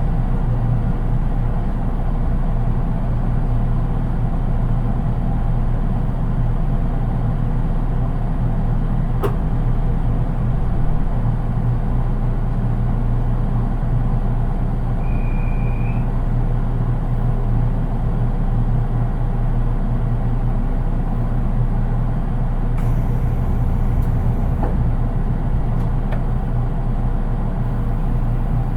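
JR East 183 series electric train heard from inside its unpowered driving trailer car while running between stations: a steady low rumble of wheels on track at an even level, with no traction-motor sound, which gives it a rather plain character. A single click about nine seconds in.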